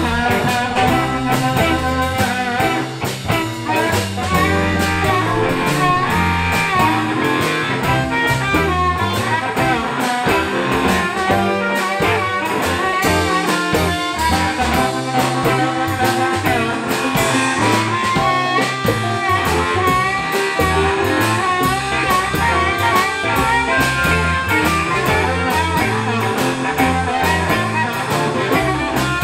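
Live blues band playing a shuffle, with a harmonica lead of bent, wavering notes over electric guitars, keyboard, drum kit and timbales.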